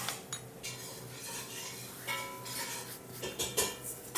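A utensil clinking and scraping in a mixing bowl as a marinade of oil, vinegar, lemon juice and herbs is mixed. The taps are irregular, and one about two seconds in rings briefly.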